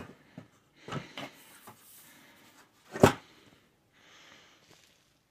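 Camco 51891 aluminium roll-up table being handled: a few light clicks and soft rustling, then one sharp knock about three seconds in.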